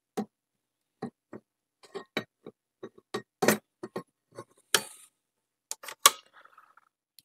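Irregular clicks and knocks of hands working on a Garrard 401 turntable while its speed is being adjusted, about a dozen in all. The loudest comes about six seconds in and rings briefly.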